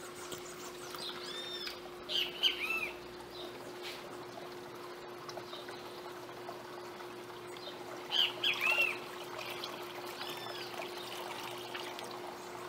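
Water pouring and trickling from a plastic bowl into a glass fish tank, with birds chirping in short arched calls, loudest about two seconds in and again about eight seconds in. A faint steady hum runs underneath.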